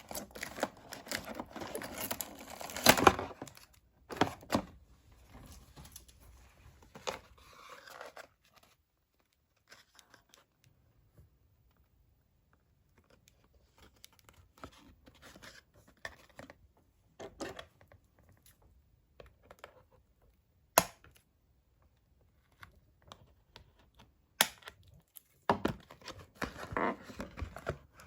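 Doll packaging being opened by hand: paper, cardboard or plastic tearing and crinkling, with a few sharp clicks and snaps. Busy handling near the start and again near the end, with a quiet stretch of small ticks in between.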